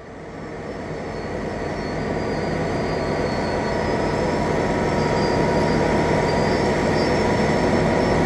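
Heavy machinery running steadily: a broad rumble with a few steady whining tones, fading in over the first few seconds and then holding level.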